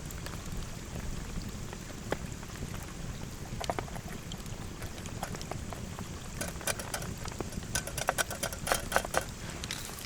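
Steady rain with scattered sharp taps of drops, which come thick and fast in the second half.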